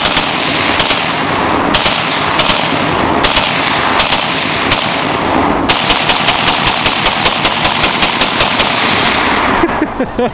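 Romanian WASR-10 AK-47, a semi-automatic rifle, bump-fired so that it shoots like an automatic: a long, rapid string of loud shots that stops about nine and a half seconds in, as the magazine runs empty.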